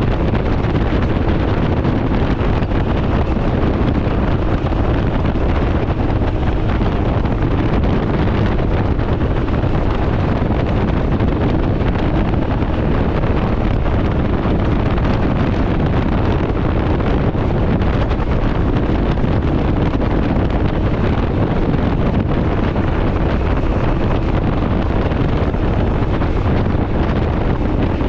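Steady wind buffeting the microphone at riding speed on a Can-Am Ryker 900 three-wheeled motorcycle, with a constant low drone of the vehicle and road underneath.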